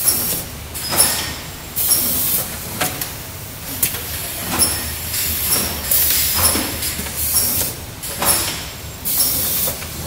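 Automatic tub filling and sealing line running: a steady machine hum with repeated hissing bursts, about one every one to two seconds, typical of compressed-air actuators venting, and sharp clicks and clacks from the mechanism.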